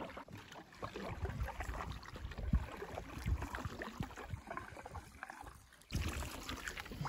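A canoe being paddled: paddle strokes and water sloshing and trickling along the hull, coming irregularly. The sound jumps abruptly louder about six seconds in.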